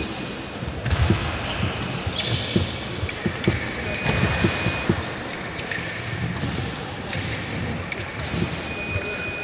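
Large sports hall ambience: repeated dull thumps and knocks at an irregular pace, distant voices, and a few steady electronic beeps that each last about a second.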